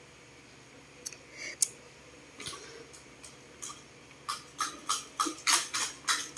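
Light taps and clicks of fingers pressing a painted leaf onto paper: a few scattered taps, then from about four seconds in a fairly even run of about three taps a second.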